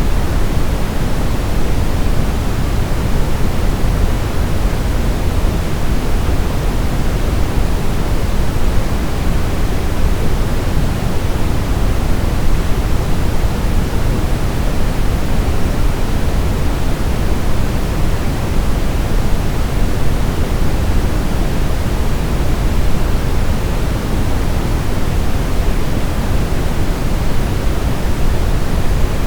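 Steady brown noise: an even, unchanging rushing hiss weighted toward the deep bass, with the highs rolled off.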